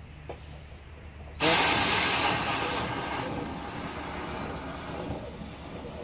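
Compressed air blasting through a hose fed into a dryer vent duct. A sudden loud hiss starts about a second and a half in and eases to a steady rushing hiss as lint and dust are blown out of the vent.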